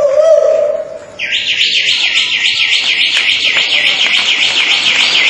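Mouth-made imitation of a bird: a loud, fast, evenly repeating warbling trill that starts about a second in and keeps going, following a held voice-like tone at the very start.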